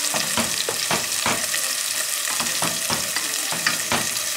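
Beef strips and peppers sizzling in an aluminium pot while being stirred with a wooden spoon, the spoon knocking and scraping against the pot several times a second over a steady frying hiss.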